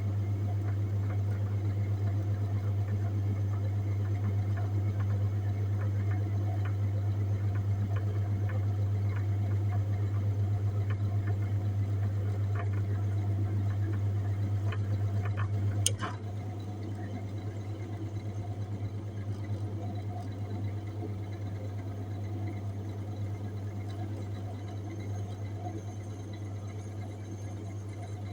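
Refrigerated display case running with a steady low hum and faint scattered ticking. About sixteen seconds in there is a sharp click, and the hum carries on a little quieter.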